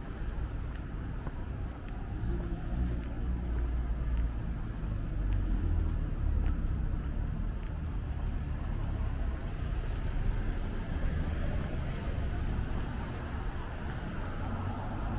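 City street traffic: cars driving past with a steady low rumble that swells a little around the middle.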